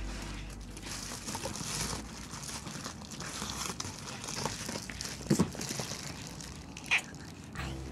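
A pet grooming brush rasping through a cat's fur in repeated strokes, with two short sharp knocks about five and seven seconds in.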